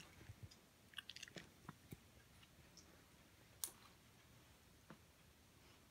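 Near silence: quiet room tone with a few faint scattered clicks and ticks, the sharpest one a little past the middle.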